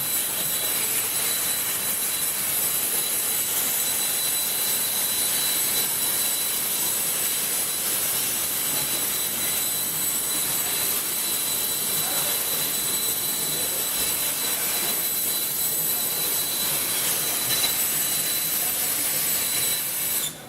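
Hypertherm HPR260XD plasma torch on a CNC bevel head cutting metal: a steady, loud hiss with a thin high whine over it, cutting off suddenly near the end.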